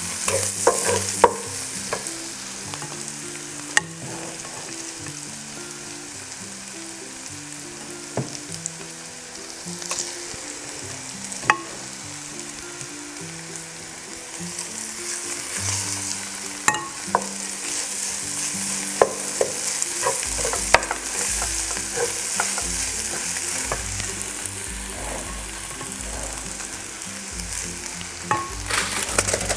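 Diced kimchi and spam sizzling in a nonstick frying pan, stirred with a wooden spatula that clicks against the pan now and then. The sizzle grows louder about halfway through.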